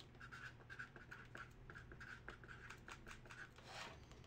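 Faint scratching of a felt-tip marker writing in short strokes, with a few light ticks.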